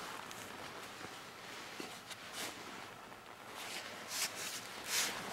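Faint scraping and rustling of a knife working through a lynx's hide and fur, with a few short, sharper scrapes, the clearest about four and five seconds in.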